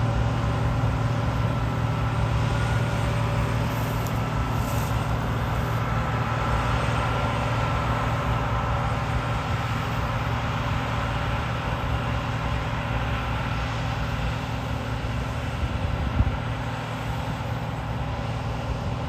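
John Deere 2058 combine harvester running steadily, a constant engine hum with a faint whine above it. A single short knock about three-quarters of the way through.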